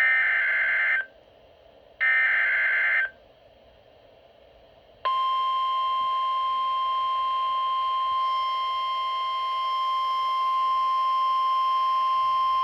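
Emergency Alert System broadcast over NOAA Weather Radio. Two buzzy, screeching SAME data header bursts, each about a second long, come two seconds apart. About five seconds in, the steady single-pitch 1050 Hz weather radio warning alarm tone starts and holds.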